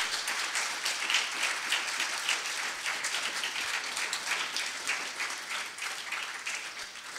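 Audience applauding steadily, the clapping dying down slightly near the end.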